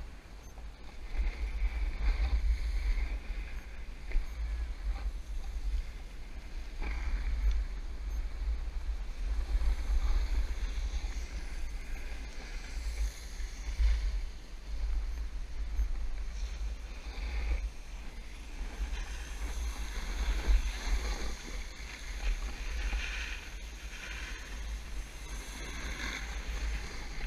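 Wind buffeting the microphone of a head-mounted action camera at speed, with the rush and scrape of a snowboard carving over hard groomed snow, swelling and easing with each turn.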